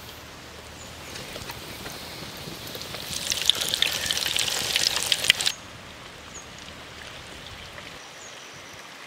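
Batter-coated fish pieces deep-frying in hot oil, sizzling. The sizzle swells into dense crackling from about three seconds in and cuts off suddenly a little after five seconds, leaving a quieter steady hiss.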